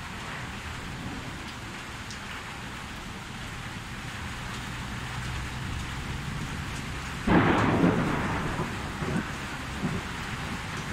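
Steady heavy rain, with a sudden crack of thunder about seven seconds in that rumbles off over a second or two, followed by two smaller cracks.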